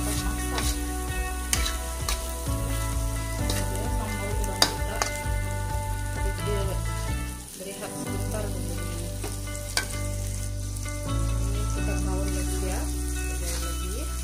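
Shrimp, petai beans and thick chilli sambal sizzling in a wok, stirred with a metal spatula that scrapes and knocks against the pan now and then, the sharpest knock about four and a half seconds in. The shrimp have released their juices and the dish is nearly cooked.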